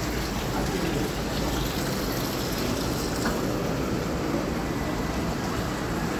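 Steady rush of running water, an even wash of noise without breaks.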